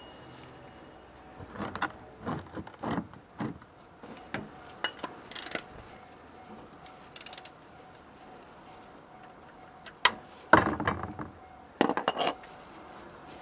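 Metal hand tools clinking and knocking in scattered clusters of sharp clicks and clanks during car oil-change work, the loudest cluster about ten seconds in.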